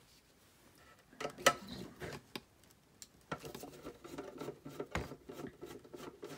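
A few sharp knocks from handling the metal case of a hot-air rework station, then, from about three seconds in, the scratchy grinding of a screwdriver turning a screw out of the case.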